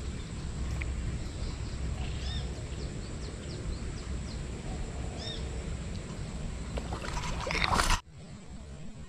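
Outdoor ambience: a steady low rumble with a bird giving short chirps twice. Near the end a louder rush of noise swells up and cuts off abruptly.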